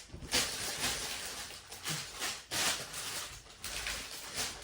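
Plastic parts bags rustling and crinkling in irregular short bursts as they are handled.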